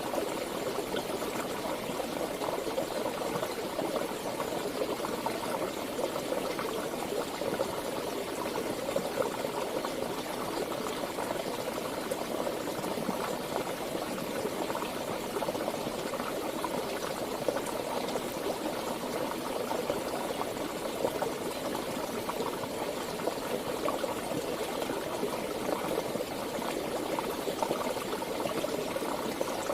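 Flowing water of a river or stream, running steadily.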